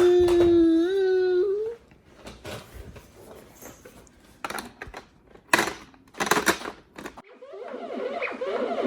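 A toddler lets out a drawn-out whining cry, then a scattering of knocks and clatters, and near the end a toy's electronic music starts up with a quick repeating tune.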